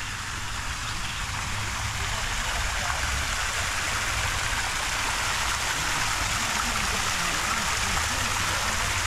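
A steady rushing hiss over a low rumble, growing a little louder in the first few seconds.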